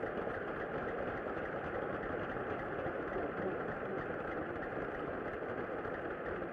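Spectators applauding steadily at the end of a tennis match.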